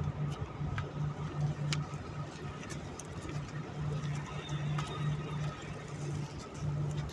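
A ship's engine droning low and steady, pulsing unevenly, with a few faint clicks and knocks scattered through.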